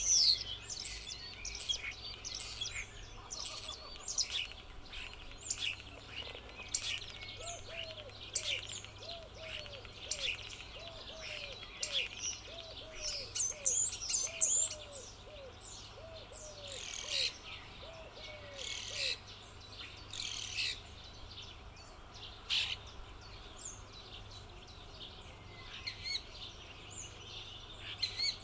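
Wild birds singing: many quick high chirps and trills overlapping. From about six to nineteen seconds in, a lower call repeats in pairs about once a second.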